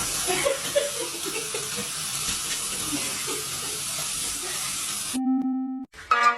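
Running water hissing steadily from a bath tap or sprayer, cutting off suddenly about five seconds in. A short held tone follows, and music starts near the end.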